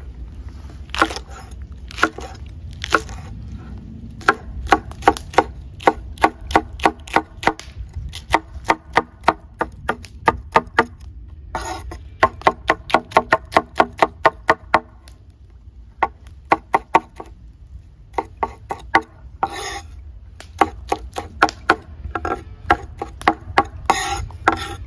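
A knife chopping food on a cutting board in quick, even runs of about four to five strokes a second, pausing briefly between runs, over a steady low rumble.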